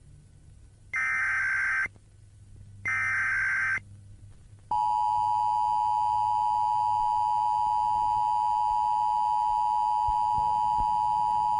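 Emergency Alert System tones: two SAME header data bursts, each about a second long with about a second's gap between them, then about five seconds in the steady two-tone EAS attention signal starts and holds for about seven seconds.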